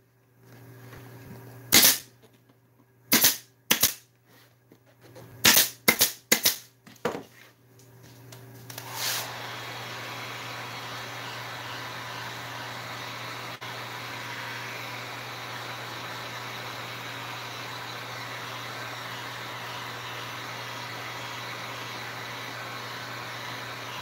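Pneumatic staple gun driving staples through vinyl into a tractor seat pan, about eight sharp shots in the first seven seconds. About nine seconds in, an electric heat gun starts and runs with a steady blowing hiss and a low hum.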